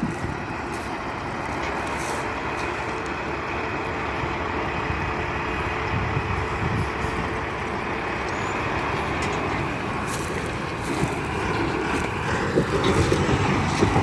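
Steady rumble of an intermodal freight train rolling away down the track, its last car already past.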